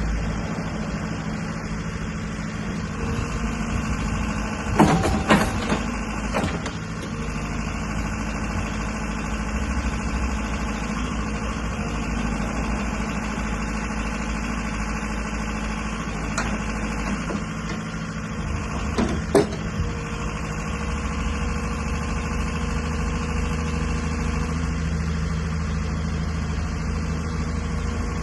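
JCB 86C excavator's diesel engine running steadily, with a few sharp knocks, two near five seconds in and one at about nineteen seconds.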